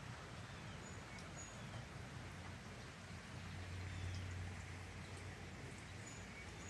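Steady rain falling, with small birds giving a few short, high chirps now and then. A low hum runs under it and swells about four seconds in.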